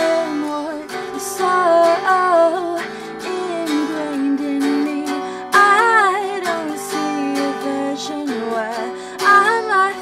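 A woman singing an indie-pop song while strumming a semi-hollow-body electric guitar. The sung phrases waver in pitch, strongest about six seconds in.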